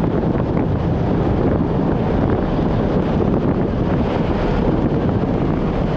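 Steady wind rushing over the microphone on the open deck of a moving ferry, an even, unbroken roar with no distinct events.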